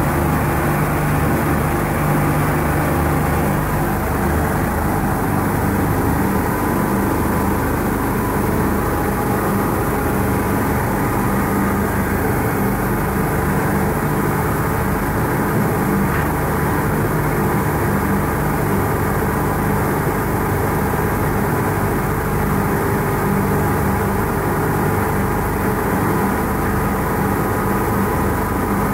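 Double-sided wide-belt sanding machine for wooden mouldings running: a steady mechanical drone with several constant tones that holds unchanged throughout.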